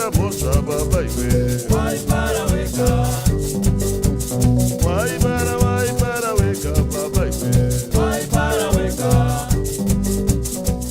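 A song with a singing voice over a steady, fast percussion beat and bass, playing as background music.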